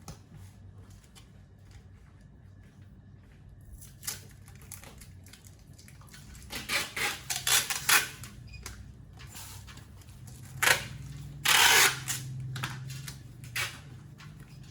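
Irregular clicks and knocks of things being handled, several in quick succession a little past the middle and a louder brief rush of noise about three quarters of the way in.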